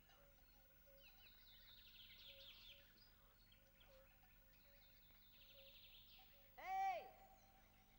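Faint dawn countryside ambience: birds chirping and singing over a steady faint trill. Near the end, one louder short animal call that rises and falls in pitch.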